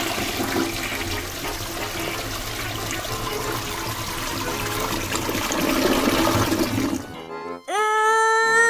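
Recorded toilet-flush sound of rushing water for about seven seconds, set off by pressing the flush lever on a pink toy toilet. Near the end it gives way to a short, steady musical tone.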